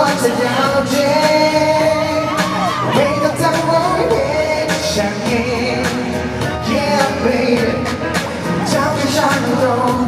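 A male pop singer singing live into a microphone over a backing track with a steady beat.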